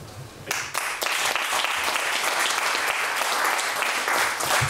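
Audience applauding, starting about half a second in and going on steadily, with a dull bump near the end.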